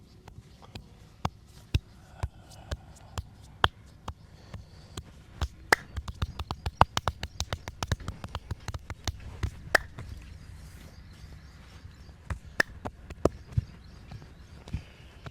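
Massage hands striking a person's head and back: sharp slaps and taps, spaced out at first, quickening into a rapid patter in the middle, then a few louder single smacks near the end.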